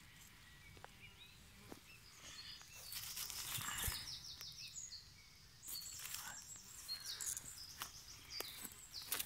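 Songbirds singing outdoors: repeated high chirping phrases, loudest from about three seconds in. Short clicks and soft rustles come from dry straw residue being parted by hand.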